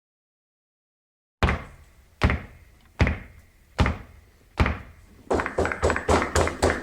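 Five heavy thuds about 0.8 s apart, each dying away, followed by a quicker run of hits near the end that leads into music.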